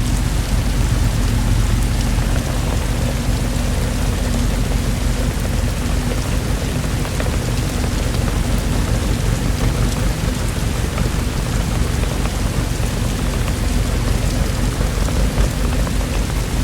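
Steady, heavy rainfall, an even wash of drops with a continuous low rumble underneath.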